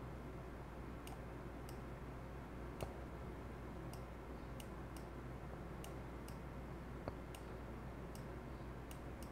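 Faint clicks of a K World Gaming Orion-M1 gaming mouse's button, pressed and released a dozen or so times at irregular spacing as strokes are drawn, over a low steady hum.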